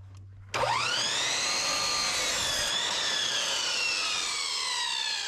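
Chicago Electric sliding compound miter saw switched on about half a second in, its motor whine rising quickly as the blade spins up. The whine then holds with its pitch sinking slowly as the blade cuts through a 2x4.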